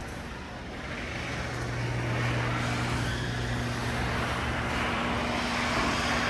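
Chamberlain LiftMaster half-horsepower garage door opener running to raise a double garage door: a steady motor hum that sets in about a second in and grows a little louder before holding.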